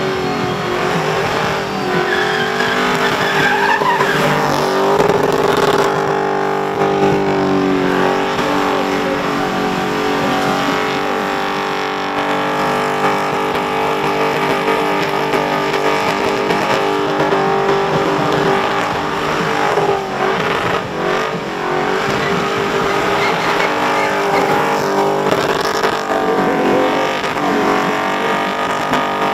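Holden Commodore burnout car's engine held at high, steady revs, dipping briefly a few times, over the screech of its spinning rear tyres.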